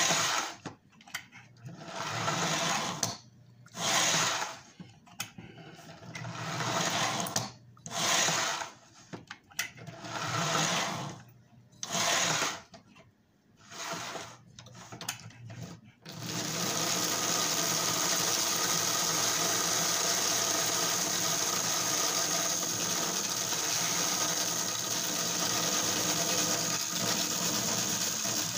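Electric motor of a flood-damaged Lionel 1065 toy-train locomotive, its armature freshly cleaned with alcohol, running in short spurts of about a second as the transformer throttle is worked up and down. From about halfway in it runs steadily with an even whine.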